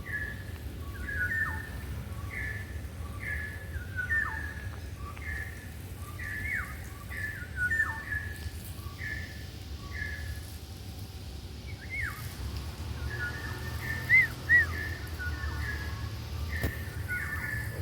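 Birds calling from a tree: a steady run of short high whistled notes, about one or two a second, some slurring sharply downward. Two louder notes come about fourteen seconds in.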